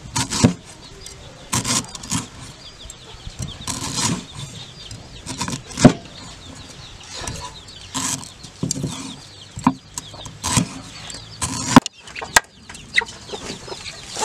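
A cleaver chopping lemongrass on a round wooden chopping board: a string of sharp knocks, irregular, roughly once a second.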